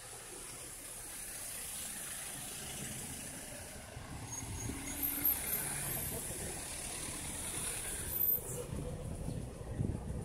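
Motor traffic on a city street: a vehicle's rumble swells over the first couple of seconds and carries on steadily.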